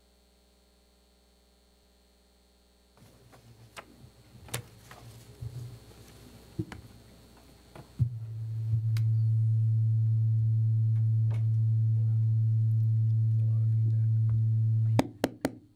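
Loud steady electrical hum, a low buzz with overtones, from the council chamber's microphone and sound system, typical of a mains or ground hum in the audio chain. It starts abruptly about halfway through and cuts off near the end with a few clicks. Before it there is faint room noise with scattered knocks.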